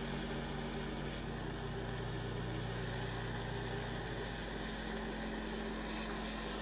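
Butane micro torch burning with a steady hiss while it heats a solder joint on a silver case, under a steady low hum.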